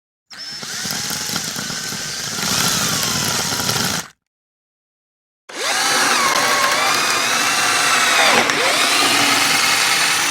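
Electric drill motor running in two bursts, about four and then five seconds long with a short pause between, its whine gliding up and down in pitch as the speed changes. The second burst is louder, with a brief dip in pitch near its end.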